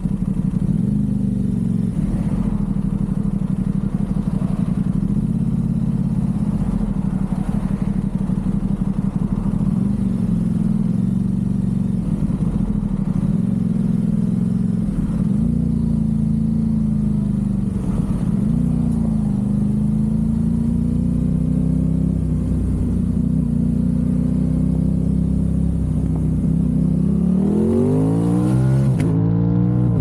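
Aprilia RS660's parallel-twin engine through a low-mounted Mivv Delta Race exhaust, cruising at a steady pitch with small throttle changes, then rising sharply as the bike accelerates near the end.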